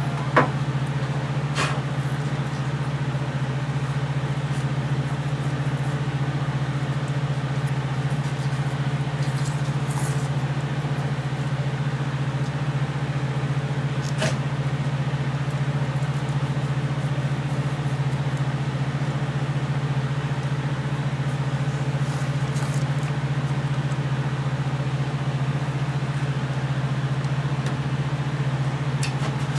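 Wood lathe's motor and belt drive running with a steady low hum, with a few light clicks as hands work at the step pulleys.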